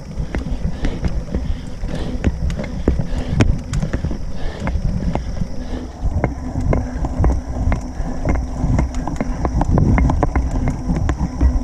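Mountain bike being ridden over a rough track: a steady low rumble of tyres and wind on the microphone, with frequent sharp rattles and knocks from the bike jolting over the surface.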